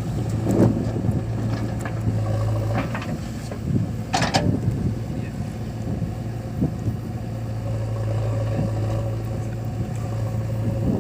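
Diesel engine of earthmoving machinery running steadily with a low hum, with scattered knocks and a brief sharp clank about four seconds in.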